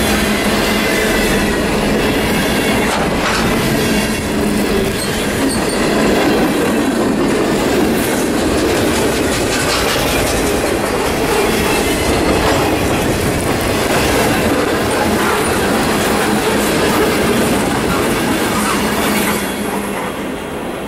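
Freight cars of a long CSX train rolling past, with steady wheel-on-rail rumble and clatter and some wheel squeal. The noise drops off about a second before the end.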